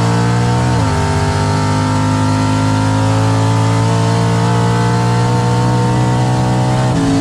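Drag race car's V8 engine at full throttle, heard from inside the cabin, its pitch climbing steadily through a gear. It drops sharply with an upshift about a second in and again with another upshift near the end.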